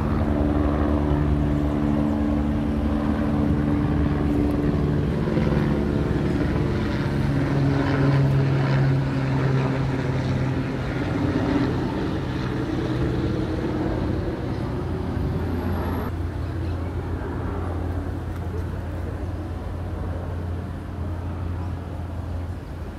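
Helicopter flying overhead: a continuous rotor and engine drone with several pitched tones that shift over the first ten seconds, growing somewhat fainter over the last few seconds as it moves away.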